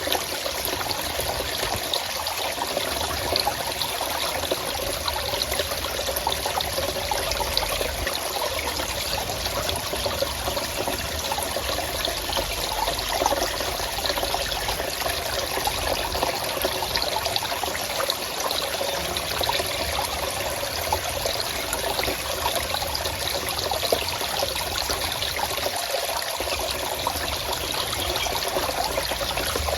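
Forest stream running steadily, water trickling and splashing over rocks.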